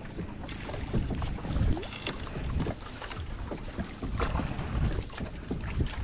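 Wind buffeting the microphone and water sloshing and lapping against a small fishing boat's hull: irregular, rumbling noise with scattered small splashes and knocks and no steady engine tone.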